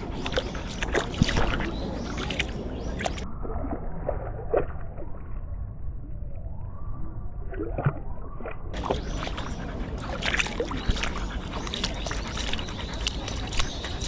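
A husky's paws splashing and sloshing through a shallow stream, picked up close by a collar-mounted camera, with the water trickling over the rocks. For several seconds in the middle the sound turns muffled as the camera dips into the water.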